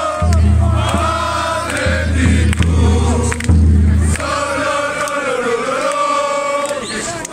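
Large crowd of football supporters singing a chant together in unison, many voices holding long notes that rise and fall. A low rumble lies under the singing and stops about four seconds in.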